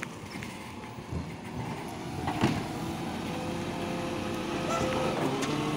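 Side-loader garbage truck running while its automated arm grabs and lifts a wheelie bin: a knock about two and a half seconds in, then a steady multi-tone whine from the engine and hydraulics as the bin is raised.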